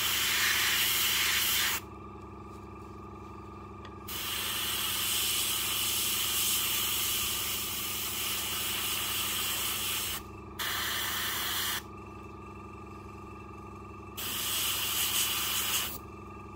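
Fengda airbrush spraying paint in four spells of hiss, the longest about six seconds, cut off sharply each time the trigger is released. The steady hum of the airbrush compressor runs underneath throughout.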